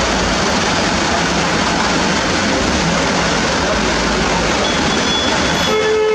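Loud, steady noise of a heavy truck's engine running, with a brief higher-pitched tone near the end.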